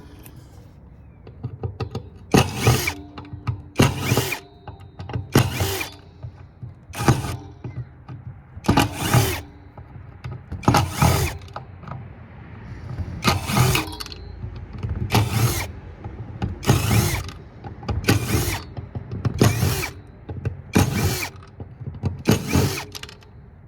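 Power drill-driver run in about fourteen short bursts, one every second or two, backing screws out of an electronics board.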